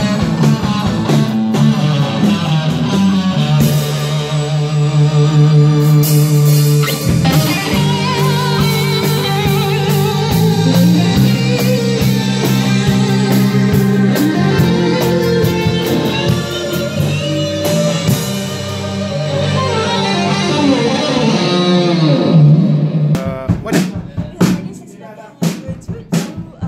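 Live rock band playing in a rehearsal room: electric guitar, bass guitar and drum kit, with a woman singing. The song ends about 23 seconds in, and a few scattered taps and knocks follow.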